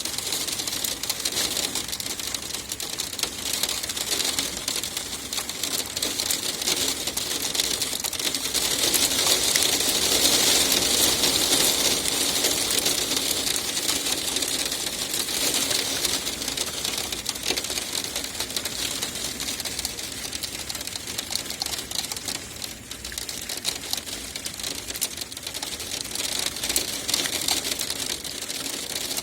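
Hail falling, a dense clatter of countless small ticks, heaviest about ten seconds in and easing somewhat in the second half.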